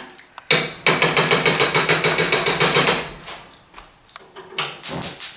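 Rapid, even clattering of a metal spoon against a saucepan, as in hard stirring, for about two seconds starting about a second in, then a few shorter bursts near the end.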